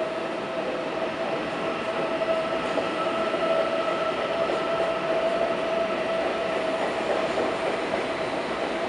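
Coupled pair of Deutsche Bahn ICE-T (class 411) electric trainsets rolling out past the platform after coupling: steady rolling noise with a steady whine over it, rising a little about two seconds in.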